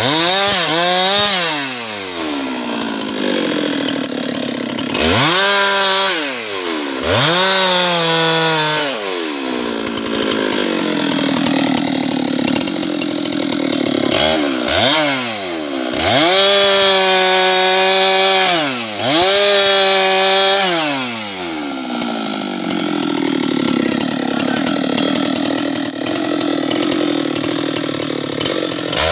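Husqvarna 390XP chainsaw revving up and dropping back again and again, with stretches of lower, steadier running as it cuts into teak wood. There are quick blips around the middle, and a longer spell of steady lower running near the end.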